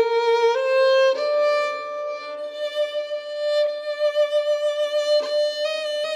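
Violin playing a slow melody of long bowed notes that step upward in pitch a few times, one note held for several seconds.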